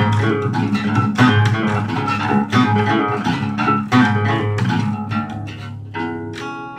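Acoustic guitar and acoustic bass guitar playing an instrumental passage, picked guitar notes over a steady low bass note. The playing grows quieter toward the end, and the low note drops away about six seconds in.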